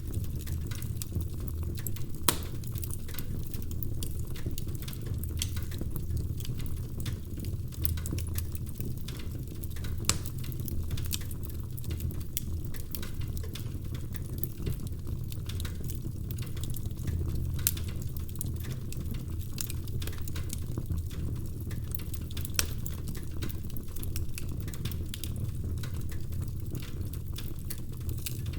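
Wood fire burning in a fireplace: a steady low rumble of flames with irregular crackles and snaps of burning logs, a few sharper pops standing out.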